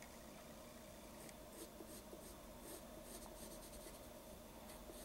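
Pencil lead scratching faintly on paper in short repeated strokes, over a faint steady hum.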